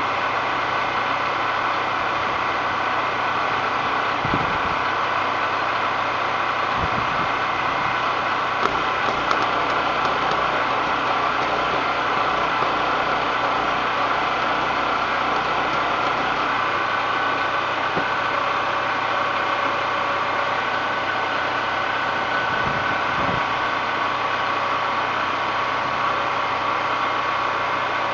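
Small engine running steadily at constant speed, with a few faint knocks.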